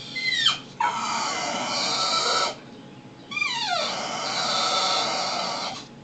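Pit bull-type dog crying: a short falling yelp, then two long, loud, high-pitched wails, each opening with a whine that slides down in pitch.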